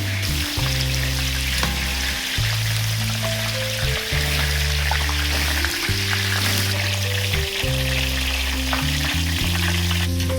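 Soya chunks frying in hot oil with a steady sizzle, over background music of low held notes.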